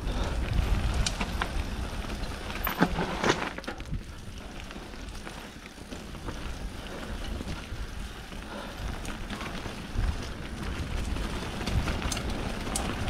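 Intense Tracer full-suspension mountain bike descending a wet, rocky, rooty trail: tyres rumbling and crackling over the ground, with wind on the microphone and sharp knocks and rattles from the bike, the loudest about three seconds in and a few more near the end.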